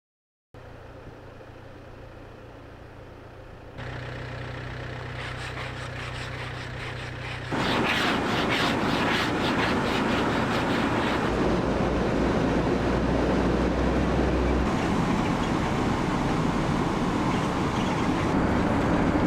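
Car on the move: steady engine and road noise. It starts suddenly about half a second in and grows louder in two abrupt steps, about 4 and 7.5 seconds in.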